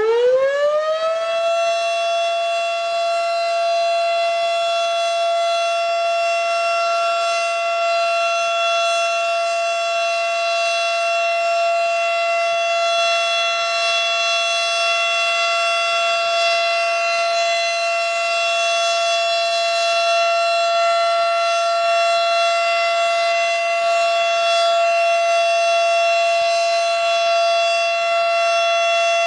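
Federal Signal Model 7 electromechanical warning siren sounding a test. It is still winding up as the sound begins, its pitch rising and levelling off about a second and a half in, then it holds one loud, steady tone.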